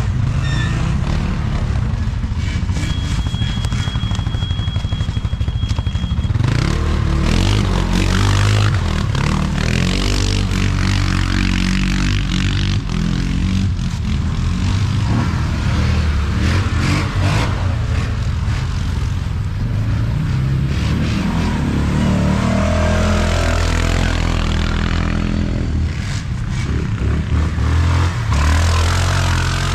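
ATV engine running hard on a dirt track, its pitch rising and falling again and again as it revs and backs off, over a constant rough rush of noise. A thin high whine sounds for a few seconds near the start.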